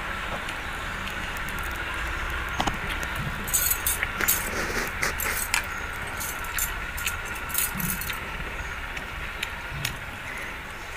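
Bangles on a wrist clinking and jingling in a series of light, irregular clicks as the hand moves, most of them between about three and a half and eight seconds in, over a steady low background hum.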